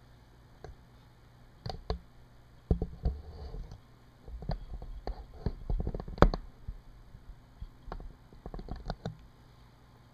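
Handling noise: irregular clicks, taps and knocks as a hand holds and shifts a smartphone right in front of the camera, with the loudest knock a little past the middle.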